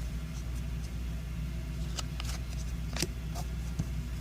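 Baseball trading cards being handled and flipped through, with a few short clicks and rustles about two, three and nearly four seconds in, over a steady low background hum.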